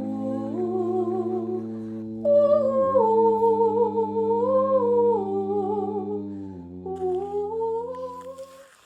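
Background music: wordless humming vocals holding and shifting sustained notes over a low steady drone, stopping near the end.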